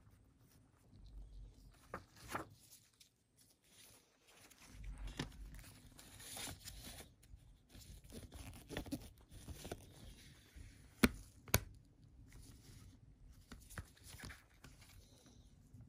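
Faint rustling and crinkling of a glossy paper CD booklet and plastic jewel case handled in gloved hands, with scattered small clicks. Two sharp plastic clicks from the jewel case come about half a second apart, a little past halfway.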